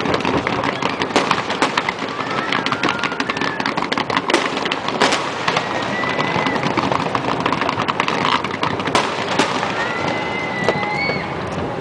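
Fireworks display: dense, continuous crackling from low-level crackle and fountain effects, with several louder sharp bangs from bursting aerial shells.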